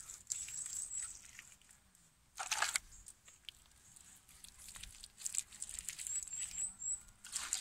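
Wet clay-and-straw daub worked by hand onto a woven willow wattle panel: irregular soft slaps, squelches and rubbing as it is pressed on and smoothed, with a louder noisy burst about two and a half seconds in.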